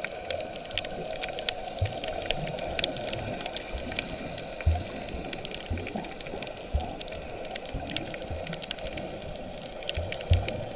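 Underwater ambience picked up by a submerged camera: a steady crackle of scattered faint clicks over a hiss, with a few dull low thumps, two of them close together near the end.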